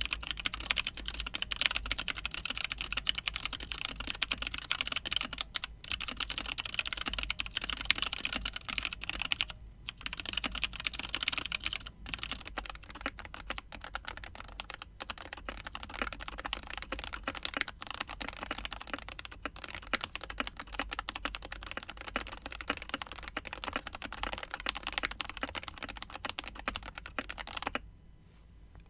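Continuous fast typing on a Keychron K2 mechanical keyboard with Gateron Brown switches, dense clacking keystrokes with a few brief pauses, stopping shortly before the end.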